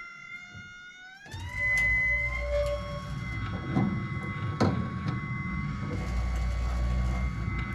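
Wood-Mizer BMS 250 bandsaw blade sharpener running: its grinding-wheel motor whines and rises in pitch about a second in, then hums steadily with a low rumble. Sharp clicks come about once a second as the advance arm indexes the blade tooth by tooth.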